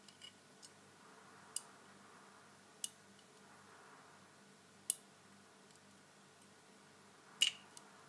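Faint, irregular metallic clicks, a second or two apart, of a lock pick working the wafers of a Lockwood 885 five-wafer window-lock cylinder under a tension wrench. The strongest click comes near the end, and a steady refrigerator hum runs underneath.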